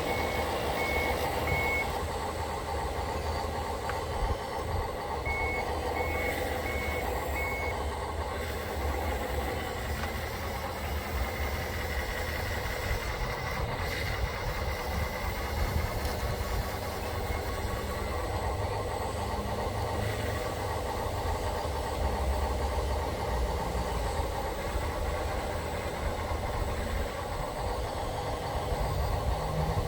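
Radio-controlled construction machines running with a steady mechanical drone, while a back-up alarm beeps at one high pitch in two short runs within the first eight seconds.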